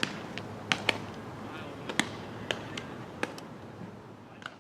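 Sharp cracks and smacks at irregular intervals, about ten in four seconds, from a baseball practice: balls striking bats and gloves, over steady outdoor background noise that fades near the end.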